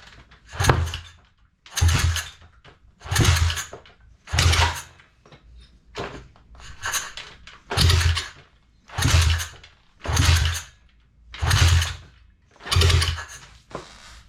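A Thumpstar pit bike's four-stroke engine being kicked over again and again, about eleven kicks a little over a second apart, each a short burst of the engine turning over that never catches into running. The engine has weak compression and will not start.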